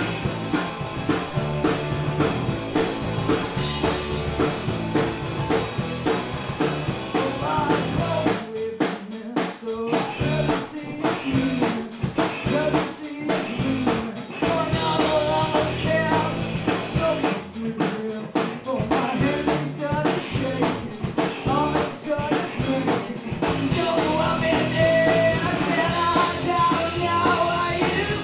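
Punk rock band playing live: electric guitar, bass guitar and a drum kit, with a woman singing into the microphone.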